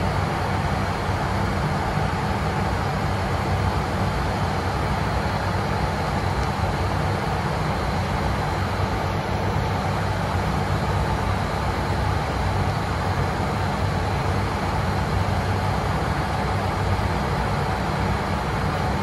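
Steady in-flight noise in the cockpit of an ATR 72-600 turboprop airliner: the low, even drone of its turboprop engines and propellers mixed with the rush of air past the airframe, unchanging throughout.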